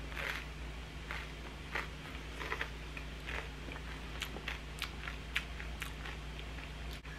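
A person chewing a mouthful of crackers with nacho toppings: a string of short, irregular crunches, coming more often in the second half.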